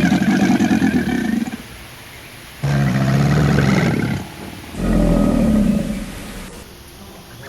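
Three long, low calls from a large animal, each about a second and a half, with short pauses between them.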